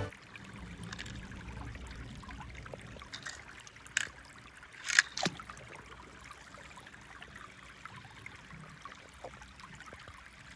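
Quiet rustling hiss broken by a few short, sharp clicks about four and five seconds in, the loudest near five seconds.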